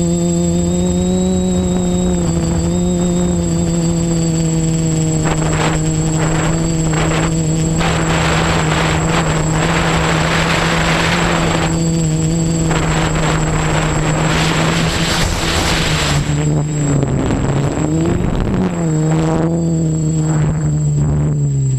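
Electric motors and propellers of an OFM Seeker 450 quadcopter buzzing steadily in flight, heard from the camera mounted on the drone, with a thin steady high whine above the hum. A rushing noise comes and goes midway, and near the end the buzz dips in pitch and climbs back as the motors change speed.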